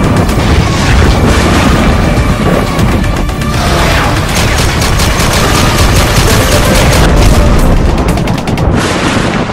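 Cinematic sound effects of rapid automatic gunfire and heavy booms over music, densest in the second half.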